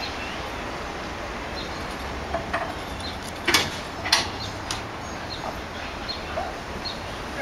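Outdoor rodeo arena ambience: a steady background noise with a few sharp knocks, the loudest two about three and a half and four seconds in, and faint short chirps.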